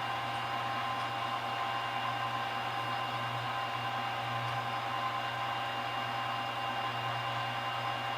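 Milling machine's spindle motor running with a steady hum and whir while drilling holes in steel plate.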